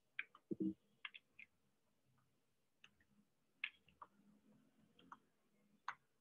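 Irregular keystrokes on a computer keyboard as a terminal command is typed, faint and sparse, with one duller thump about half a second in.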